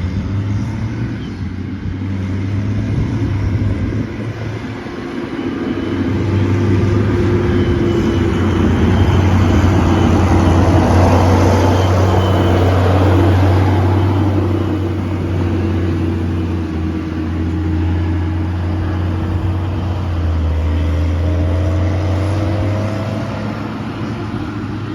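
Heavy diesel farm machinery, a forage harvester and tractors, running steadily while chopping and hauling grass silage. The sound grows louder toward the middle as a machine comes close, then settles.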